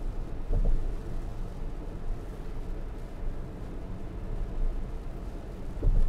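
Steady low rumble of tyre and wind noise inside the cabin of a Tesla Model S at highway speed, with no engine sound from the electric drive.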